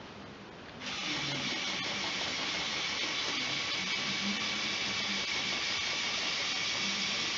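Lego Technic 8043 excavator's small electric motors and plastic gears whirring steadily as the boom and arm move, starting abruptly about a second in.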